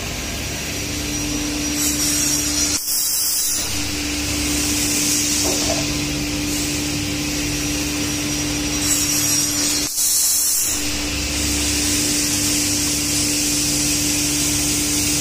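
CNC panel saw running, its saw blade cutting through a stack of particleboard panels: a steady motor hum under a hissing cutting noise. The sound breaks off briefly twice, about three seconds in and again near ten seconds.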